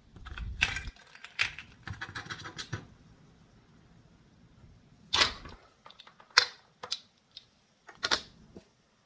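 Plastic toy fruit pieces handled on a wooden cutting board: a quick run of clicks, taps and rubbing over the first three seconds, then a louder rattle a little after five seconds and a few separate knocks and taps.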